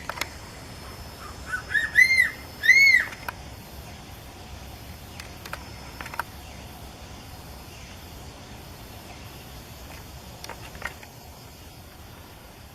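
Crowned eagle calling: a quick run of high, arched whistling notes about two seconds in, the last two the loudest. A few faint sharp ticks follow later, over a steady hiss.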